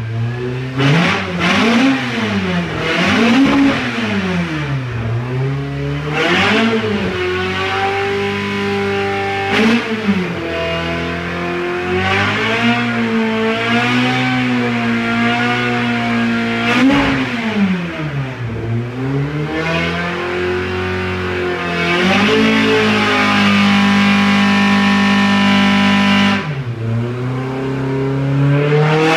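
Millington Diamond Series 2 2.5-litre four-cylinder race engine running on an engine dynamometer. It is revved up and down quickly several times in the first few seconds, then held at steady speeds with slow rises and falls. Near the end it is held steady for several seconds, drops off sharply and picks up again.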